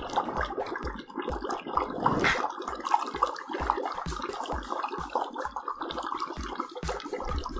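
Dry ice bubbling vigorously in a can of hot water, a continuous gurgling with a regular low glug a little over twice a second.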